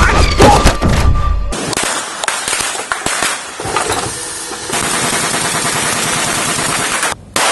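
Rapid automatic gunfire with bullet-hit impacts from squibs simulating hits. Heavy and booming for the first second or so, then a dense steady rattle from about five seconds in that breaks off near the end.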